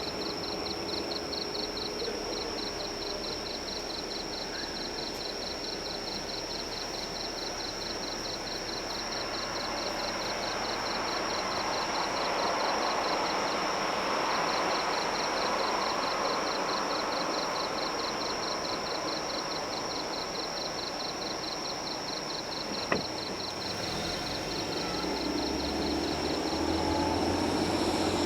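Driving noise heard inside a car's cabin: steady road and engine noise, with a constant high-pitched whine and a fast, even ticking throughout. There is a single sharp click a few seconds before the end, and the low engine sound grows louder over the last few seconds.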